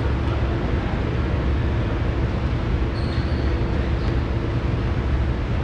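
Steady low rumble of a large gymnasium's background noise, even and unbroken, with a brief faint high tone about three seconds in.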